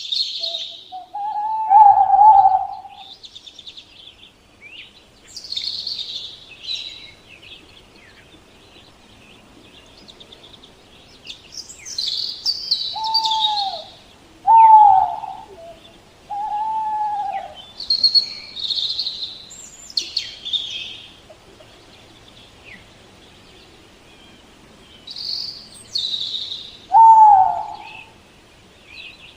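An owl hooting in single, arching hoots: one near the start, three in quick succession in the middle, and one near the end. Other small birds chirp and trill throughout.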